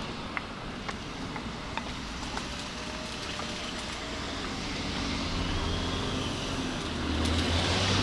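A vehicle approaching, its low rumble growing steadily louder over the last few seconds, with a few faint scattered clicks early on.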